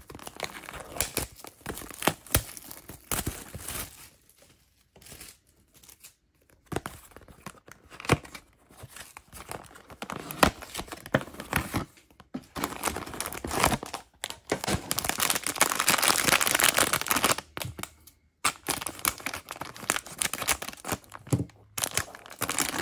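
A cardboard mystery box being opened and a foil blind bag inside it crinkled and torn open, with irregular rustling and crackling. The longest and loudest stretch of crinkling comes about two-thirds of the way through.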